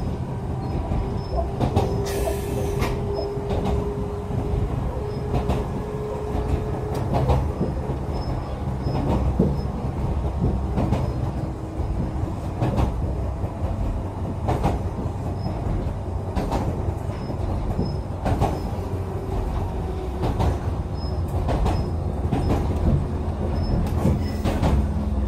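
Echizen Railway electric railcar running along the line, heard from inside the car: a steady rumble with irregular clicks of the wheels over rail joints. A steady whine runs for the first several seconds, and a brief hiss comes about two seconds in.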